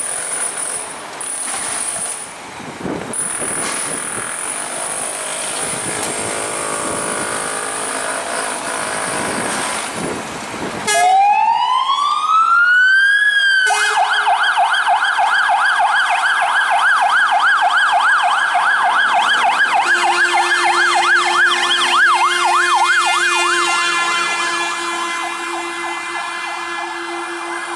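City traffic noise, then about 11 s in a Scania fire engine's siren winds up in a rising wail and switches to a fast up-and-down warble as the truck leaves on an emergency call. From about two-thirds of the way through, steady held tones from its horns join and then take over from the warble.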